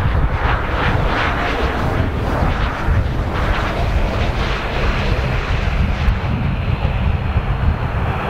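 Let 410 twin-turboprop airliner landing close by, its engines and propellers running loud as it crosses the threshold, touches down and rolls out. A steady high whine comes through more clearly in the second half.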